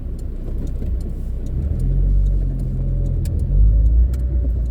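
Car driving on a city road: a low engine and road rumble that grows louder about two seconds in, with a steady low hum and scattered faint ticks.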